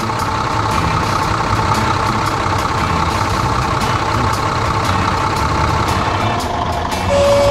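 Cartoon tractor engine sound effect, running steadily as the tractor drives along. A single held high tone comes in near the end.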